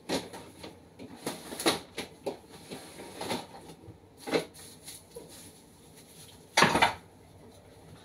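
Containers and jars being moved about on refrigerator shelves: a string of short knocks and clinks, with one louder scraping clatter about two-thirds of the way through.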